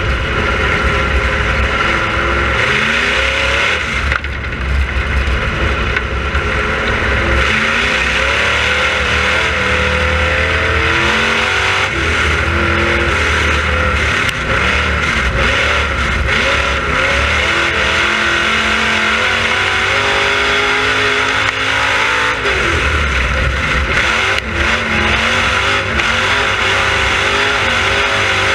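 Dirt-track race car engine heard from inside the cockpit at racing speed, running loud. Its pitch rises and falls again and again as the throttle goes on and off.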